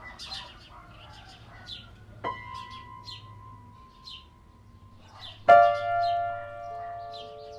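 Small birds chirping in short repeated calls. A single ringing bell-like tone sounds about two seconds in and holds for a few seconds, and near the end a loud piano chord of the closing music comes in, the loudest sound here.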